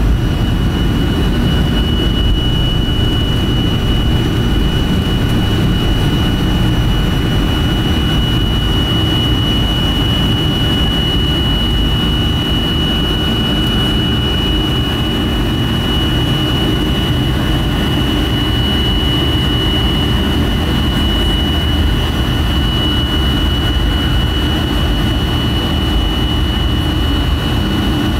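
Jet airliner's engines heard from inside the cabin during the climb just after takeoff: a steady low roar with a steady high whine over it.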